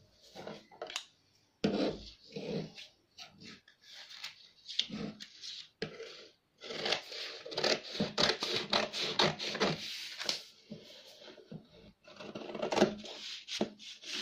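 Scissors cutting through a folded sheet of pattern paper, in irregular snips and rustles that are busiest in the second half, with the paper sliding and crackling against the table.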